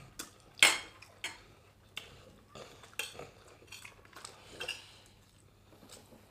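Metal forks clinking and scraping against ceramic plates while eating rice, a series of sharp clinks with the loudest just over half a second in.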